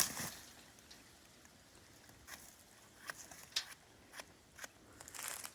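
Faint, scattered clicks and light crunches, about half a dozen spread over several seconds with quiet between: footsteps and handling on bark and twigs around a log.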